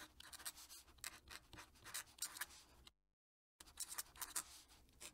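Fountain pen nib scratching across paper in quick cursive strokes. About three seconds in, the sound cuts to dead silence for about half a second, then resumes.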